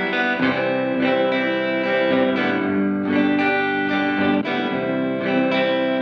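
Electric guitar played through a Fender Reflecting Pool delay and reverb pedal. New notes are picked about once a second, and their delay repeats and reverb tails overlap into a continuous ringing wash.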